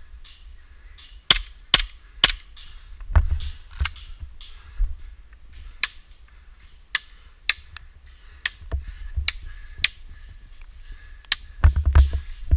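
Airsoft pistols firing: sharp snapping shots at irregular intervals, about fifteen in all, with a quick cluster near the end, together with a few low thumps.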